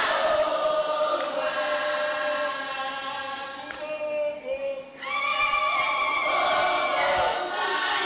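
A choir singing, many voices holding long notes together, with a brief lull about four to five seconds in before the singing swells again.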